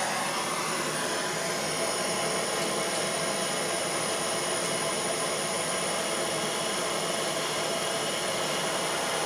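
Harbor Freight auto-start blowtorch flame burning steadily with an even rushing hiss while copper pipe joints are soldered.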